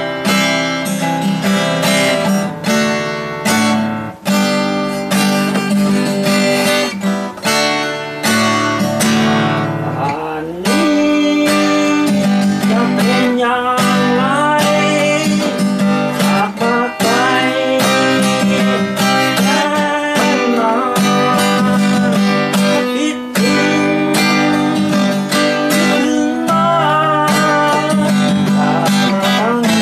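Cutaway acoustic guitar being strummed, a steady run of chords. A wavering melody line rides over the chords from about a third of the way in.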